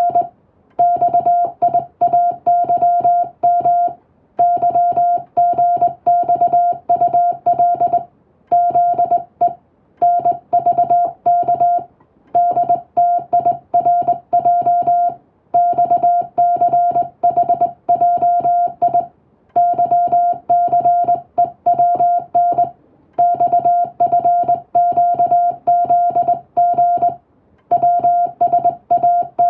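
Morse code in English plain text, sent on a telegraph key as a single steady-pitched beep keyed on and off in quick dots and dashes. It comes in runs of a few seconds, with short pauses between words.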